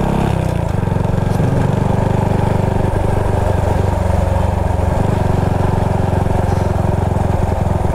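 Motorcycle engine running steadily at low speed, with an even firing pulse.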